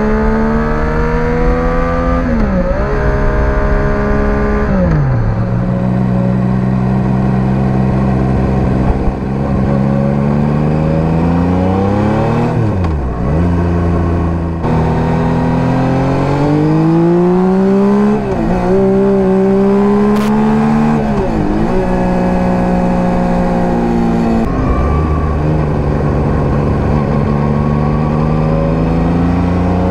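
Yamaha MT-09 (third generation) 890 cc inline-triple through an SC Project STR-1 exhaust, on the move. Its pitch climbs again and again under acceleration and falls away between pulls, dropping low about 13 seconds in.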